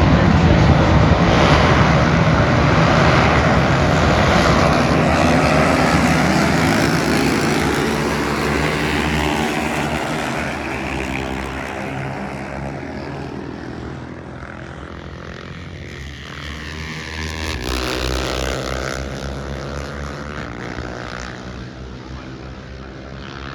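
An engine passing close by and fading slowly into the distance, with a brief swell again about two-thirds of the way through before it fades out.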